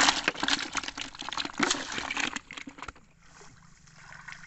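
Water splashing and sloshing with crackling rustles as fish are handled in a mesh catch net, going much quieter after about two and a half seconds.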